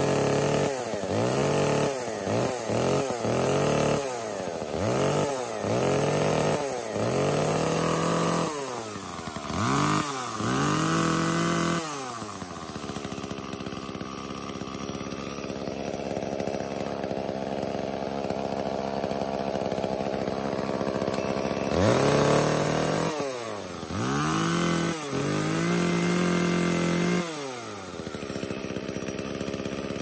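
Echo CS-305 chainsaw's two-stroke engine running after its cracked purge pump bulb has been replaced. It is revved in a string of quick blips for the first twelve seconds or so, then settles to a steady idle. A little over two-thirds of the way in it is revved again several times, once held briefly, before dropping back to idle.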